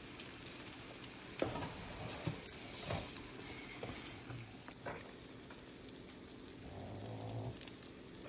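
Slices of egg-soaked sourdough French toast sizzling as they fry in a pan: a steady quiet hiss, with a few light clicks and taps.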